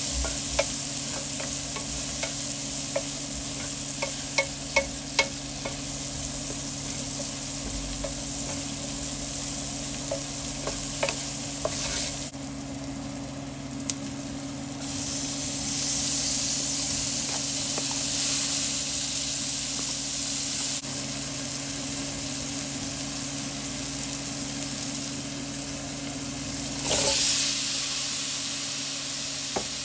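Chopped onion and garlic sizzling in a stainless steel pan, stirred with a wooden spoon that taps against the pan several times in quick succession about four seconds in. Chopped tomatoes go in about halfway, and the sizzle comes back fuller, with a brief louder burst near the end. A steady low hum runs underneath.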